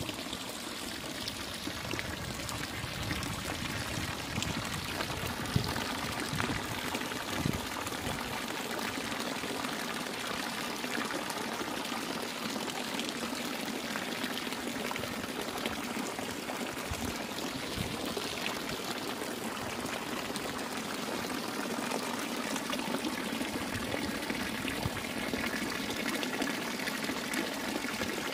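Stone fountain's thin water jets splashing steadily into its pool.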